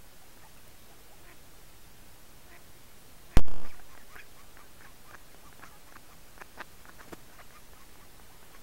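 A single loud, sharp click a little over three seconds in, where one trail-camera recording ends and the next begins. After it come scattered short, faint quacks and clicks from ducks on the water.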